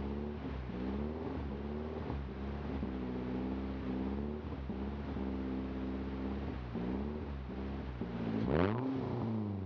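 BMW E30 318i's four-cylinder engine running with the revs rising and falling repeatedly, and a sharper rev near the end, during an upper engine cleaner treatment.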